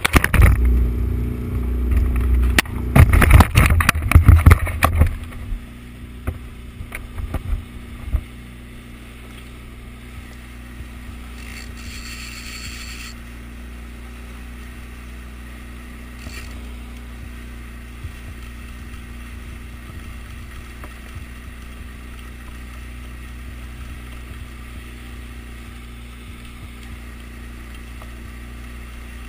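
Loud knocking and rubbing of the camera being handled for the first few seconds, then the steady low drone of a Yamaha outboard motor with the wash of water from a boat trolling at slow speed.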